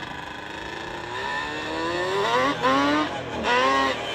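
A Yamaha sport quad accelerating hard toward the listener, its engine note climbing steadily and getting louder. It shifts up twice, with a sudden drop in pitch about two and a half seconds in and again about three and a half seconds in, then winds up again.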